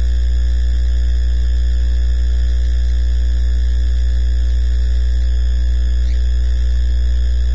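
Loud, steady electrical mains hum, a low drone with a stack of higher overtones that does not change.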